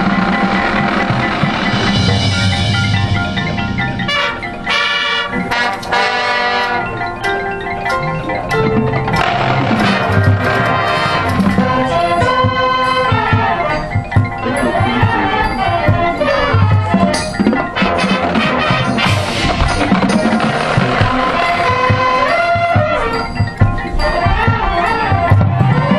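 High school marching band playing, with keyboard mallet percussion such as marimba and glockenspiel prominent in quick runs of notes.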